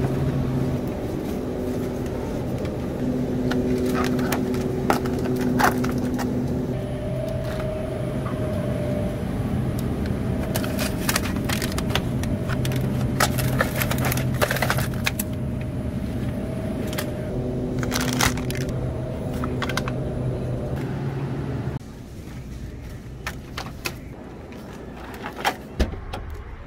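Supermarket ambience: a steady low hum with held tones that change pitch every second or two, and sharp clicks and crackles of plastic food trays being handled at the refrigerated case. About 22 s in it cuts to a quieter scene with a few knocks.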